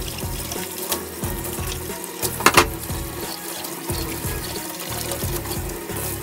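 Tap water running into a kitchen sink while dishes are washed, with a short clatter of dishes about two and a half seconds in, over background music with a steady beat.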